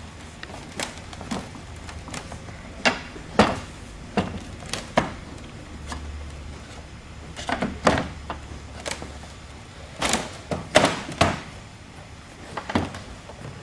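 Irregular wooden knocks and clunks as the table's frame is shifted and settled on its tabletop, the holes being worked down onto the bolts.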